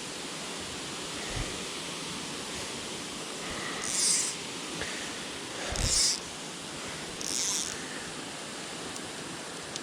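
Steady rushing of water from the river and waterfall by the pond's dam, with three brief high swishes about 4, 6 and 7.5 seconds in.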